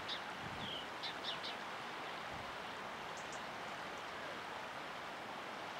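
Steady rushing outdoor noise of wind and choppy water, with a small bird giving short high chirps, several in the first second and a half and two thin higher peeps about three seconds in.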